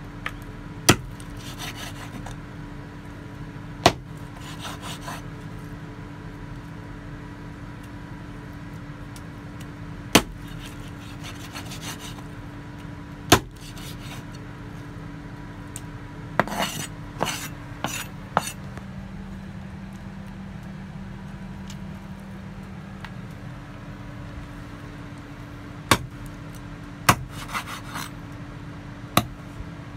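Meat cleaver chopping chicken on a wooden cutting board: single sharp chops every few seconds, with quick runs of several chops in the middle and near the end. Softer scraping and handling noises come between the chops, over a steady low hum.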